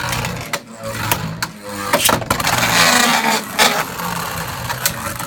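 Two Beyblade Burst spinning tops whirring and clashing in a plastic stadium, with repeated sharp clicks of hits and a louder grinding rasp in the middle.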